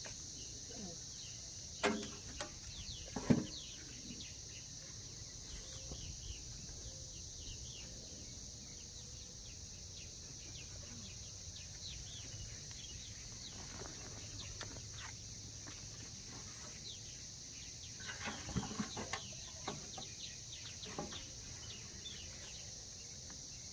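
Steady high insect buzz and scattered bird chirps outdoors, with hands digging potatoes out of a soil-filled container: two sharp knocks a couple of seconds in and a short spell of rustling and knocks about three-quarters of the way through.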